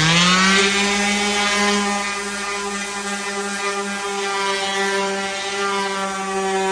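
Electric sander motor spinning up to full speed within the first half second, then running steadily at a constant high hum.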